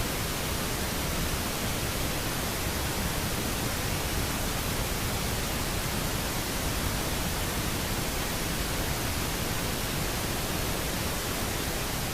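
Steady, even hiss-like noise across all pitches, like static, with no distinct events, starting abruptly just before and fading away near the end.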